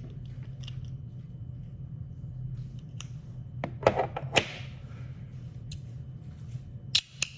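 Heavy metal magnetic fidget slider being handled: a scattering of sharp clicks and snaps, a cluster of them about four seconds in and two more near the end, over a low steady hum.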